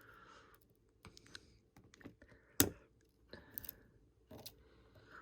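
Faint scattered clicks and ticks of a spudger prying the screen's press-fit flex-cable connectors off an iPhone 6 logic board, with one sharper click about two and a half seconds in.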